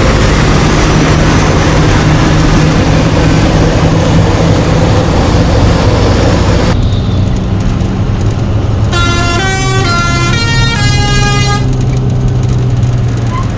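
Bus engine running with road noise. About nine seconds in, a musical bus horn plays a short tune of quickly changing notes for a couple of seconds.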